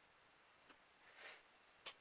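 Near silence with faint handling sounds: a soft click, a brief rustle about a second in, and a sharper click near the end, as small containers of slime activator and baking powder are picked up.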